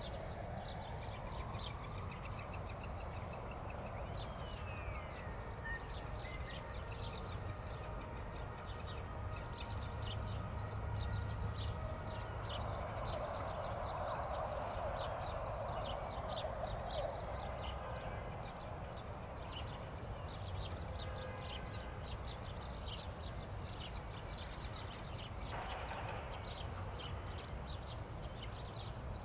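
Distant outdoor background: a steady low rumble of far-off traffic, with many short, high bird chirps all through and a louder wash of noise in the middle.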